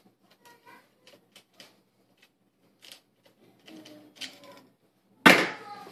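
Plastic ball-jointed legs of a flexible octopus mini tripod clicking and rattling as they are handled and a DSLR is fitted onto the mount: scattered light clicks, then one loud sudden knock about five seconds in.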